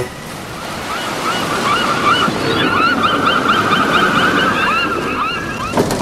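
Ocean surf washing in with a flock of gulls calling over it, many short, sharp cries overlapping.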